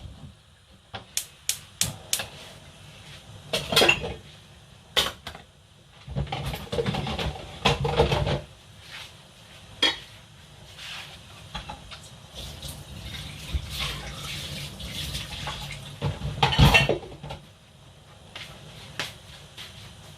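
Kitchen clatter of pots, dishes and cutlery: a string of sharp clinks and knocks, with two longer stretches of scraping and rattling.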